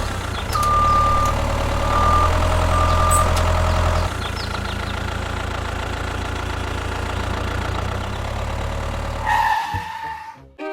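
An engine runs steadily with a deep hum, a thin high whine sounding briefly three times in the first few seconds. It drops in level about four seconds in and stops shortly before the end.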